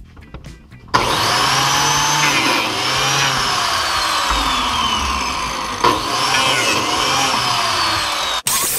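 Biscuit jointer starting up about a second in and running loud, its whine shifting in pitch as it cuts biscuit slots into the edge of a pressure-treated decking board.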